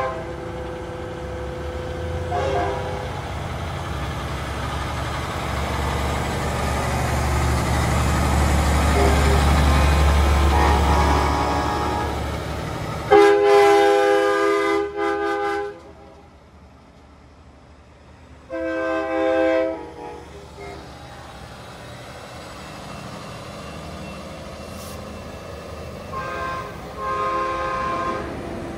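Semi trucks sounding train-style multi-chime air horns: a short toot about two seconds in, the loudest blast about halfway through for two or three seconds, then shorter blasts about two-thirds of the way through and near the end. Underneath, the deep rumble of a big diesel truck engine swells and then drops away just before the loudest blast.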